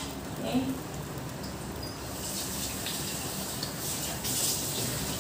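Watery blended onion and garlic paste cooking in ghee in a wok, a steady wet bubbling sizzle with no stirring, growing a little louder about four seconds in.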